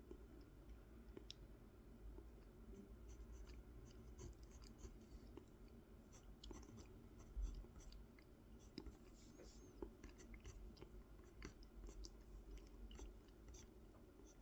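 Faint, intermittent scratching of a drawing tool sketching a design on a carved wooden honey dipper, with a soft handling bump about halfway through.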